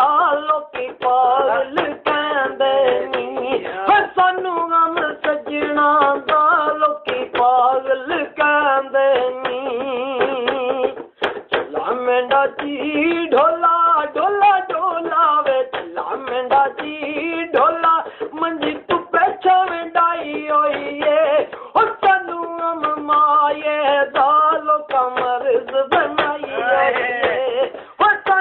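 A man singing a Punjabi folk song in a high voice with long held notes, with frequent sharp clicks or taps sounding through the singing.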